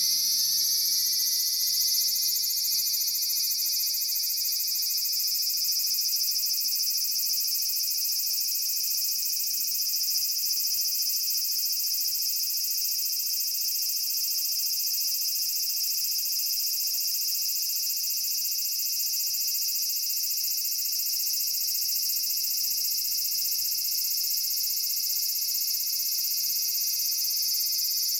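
Large brown cicada (aburazemi, Graptopsaltria nigrofuscata) singing, a dense high-pitched drone held steady without a break.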